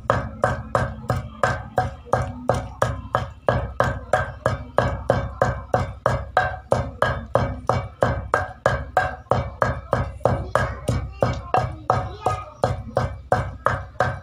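A wooden pestle pounding and mashing onion chutney in a wide mortar bowl, in a steady rhythm of about three to four thuds a second.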